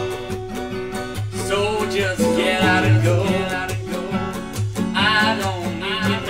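A band song: strummed acoustic guitar over a steady bass line, with a wavering melody line coming in about a second and a half in and again near the end.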